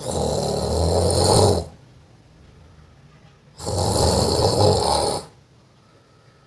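A man snoring loudly and deliberately as a prank: two long snores of about a second and a half each, the second starting about two seconds after the first ends.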